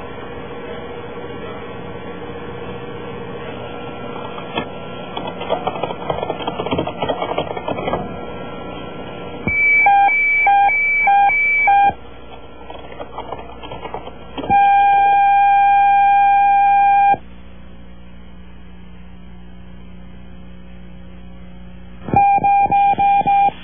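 Electronic computer-terminal beeps: a quick string of short beeps, then one long steady beep of about two and a half seconds, then a rapid run of short beeps near the end as text types out on the screen. Before them, a low electrical hum with some crackle.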